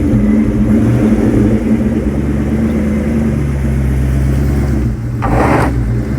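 Terminator Cobra's engine running at low revs as the car backs up onto drive-on ramps. A short scraping rush comes a little after five seconds in, as a ramp kicks out under the tyre.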